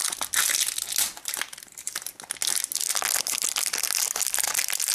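A small clear plastic wrapper crinkling and crackling as fingers work it open to free a tiny toy figure. The crackling eases for about a second near the middle, then picks up again.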